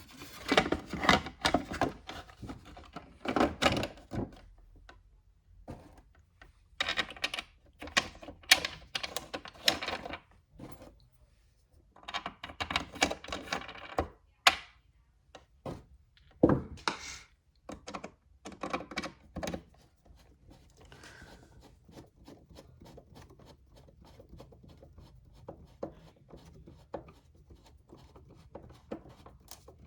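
Plastic radio case and parts being handled and fitted back together: bursts of clattering clicks and knocks through the first two-thirds, then a long run of faint rapid ticking.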